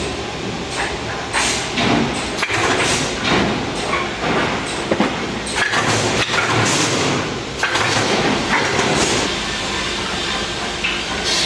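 MPCNC (Mostly Printed CNC) machine running a job at fast feed. It gives off continuous mechanical noise that swells and falls irregularly, with short clicks and knocks as the gantry moves.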